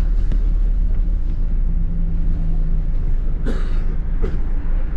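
Steady low rumble of a moving London double-decker bus, engine and road noise heard from inside the cabin. A low hum holds for about a second in the middle, and two short higher sounds come in the second half.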